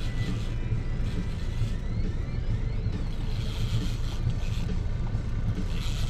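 Boat motor running steadily at trolling speed, a continuous low hum under a rush of wind and water.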